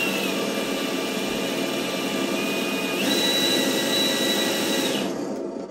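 Simulated engine sound from an ESS Dual Plus sound module's speakers on an RC crawler, running steadily together with the model's electric motor and gears. A high whine sits over it, jumps higher about three seconds in, and stops about five seconds in.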